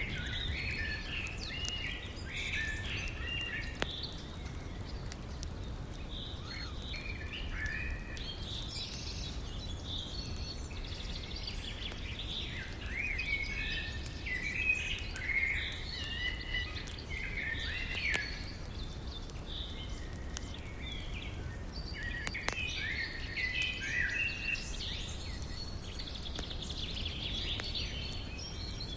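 Birds chirping and singing almost without a break over a steady low rush of river water, with a few sharp crackles from a campfire.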